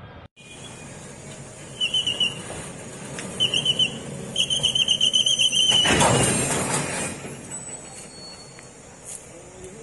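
Railway freight wagons squealing as they are moved, three bouts of high, wavering squeal with the last the longest. A loud rush of hiss follows about six seconds in and fades over about a second.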